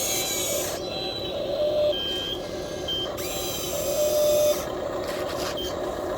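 Small electric motors and gearing of a radio-controlled model excavator whining as it works. A brighter hiss of motor noise comes and goes, loudest for a second or so about halfway through.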